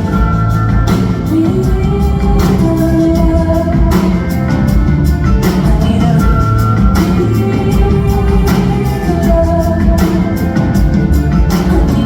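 Live rock concert music: a woman singing held, gliding notes over a full band with a steady drum beat and heavy bass, as heard from the audience.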